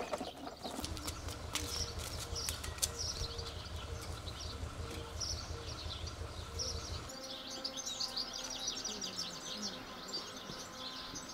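Small birds chirping and twittering throughout, over a low pulsing rumble that cuts off about seven seconds in. A few sharp clicks come in the first few seconds.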